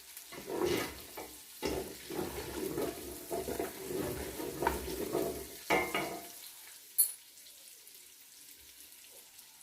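Food frying in oil in a cooking pot while a spoon stirs and scrapes the bottom to keep it from sticking, for most of the first six seconds. A sharp click comes near seven seconds, and then only a quiet sizzle is left.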